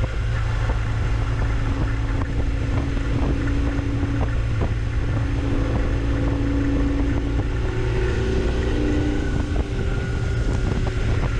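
Motorcycle engine running steadily while riding, its pitch drifting slightly up and down, with wind noise buffeting the microphone.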